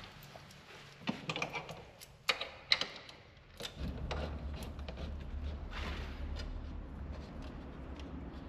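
Scattered small clicks and knocks, busiest in the first three seconds, as a JCW strut bar is seated on the strut-tower studs and its nuts are started by hand. A low steady hum comes in about four seconds in.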